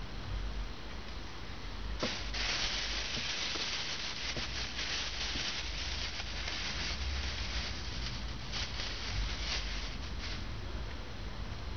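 Thin plastic bag crinkling and rustling as it is handled, starting about two seconds in and going on in irregular crackles.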